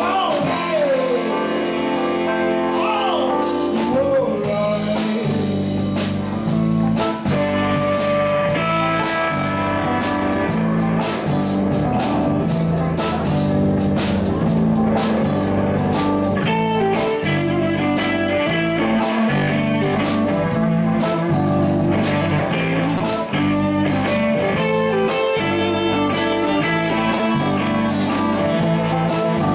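A live blues band playing: electric guitar, saxophone, electric bass and drum kit. A few sliding lead notes open it, then the bass and drums fill in under a steady groove.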